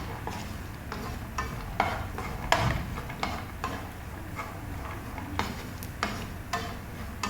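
A metal spoon scraping and knocking against a pan, about a dozen irregular clicks and scrapes, as ghee-roasted cashews and almonds are scooped out onto a plate, over a faint steady sizzle of hot ghee.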